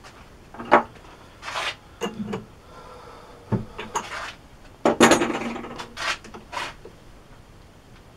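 Small steel tools and workpieces being handled on a workbench: irregular clinks, knocks and scrapes of metal on metal, with the loudest clank, which rings briefly, about five seconds in.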